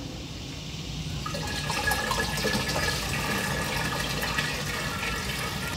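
Liquid poured steadily from a plastic bucket into a backpack sprayer's tank, a continuous splashing fill that starts about a second in.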